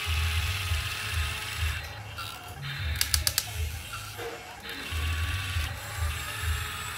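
Remote-control toy excavator's small electric motors and plastic gearboxes whirring as the arm and boom move through sand. There is a short burst of sharp ratchet-like clicking about three seconds in.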